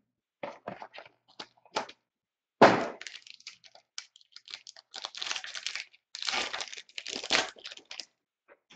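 Clear plastic shrink wrap crackling and crinkling as it is pulled off a trading-card box, in irregular bursts, with one sharp knock about two and a half seconds in.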